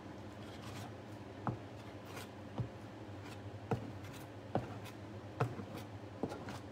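Small metal trowel scraping excess beeswax off a stencil on a board, in short strokes about once a second.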